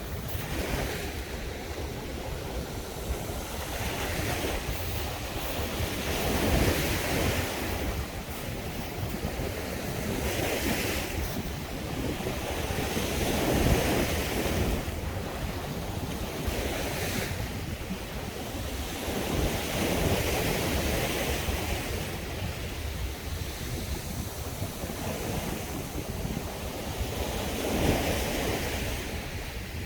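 Sea waves breaking on a beach, each one swelling up and washing back every few seconds, with wind buffeting the microphone underneath.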